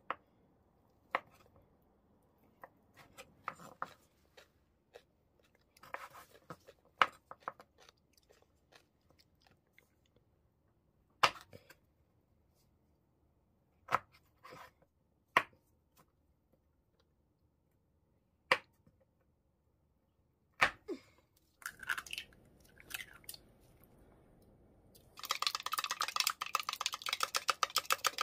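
Kitchen knife cutting strips of fish cake and then pickled radish on a wooden cutting board: single sharp knocks of the blade hitting the board, a few seconds apart. About three seconds before the end, eggs start being beaten in a plastic measuring cup, a fast continuous clatter.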